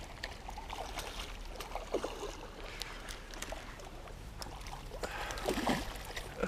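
A small pike splashing and thrashing at the water's surface at the bank while being played on the rod and netted, in irregular short splashes that grow busier a little over five seconds in as the landing net goes into the water.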